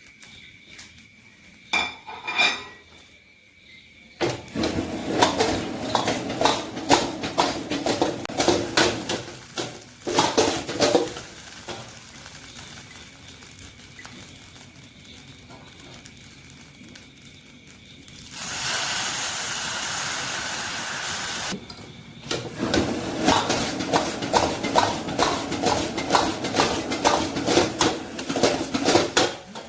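A metal spoon scraping and clinking rapidly against a cooking pot in two long spells, with a few seconds of steady hiss between them.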